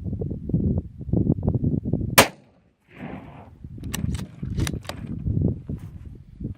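A single shot from a Howa 1500 bolt-action rifle in .223 Remington about two seconds in, sharp and loud. A few quick sharp clicks follow a couple of seconds later.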